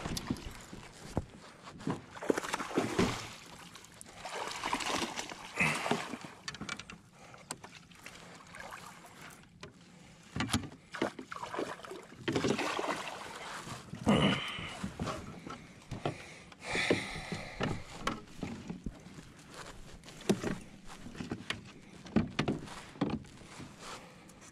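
A hooked bass splashing at the surface beside a fishing kayak and being scooped into a landing net, with water sloshing and gear knocking against the hull in irregular bursts.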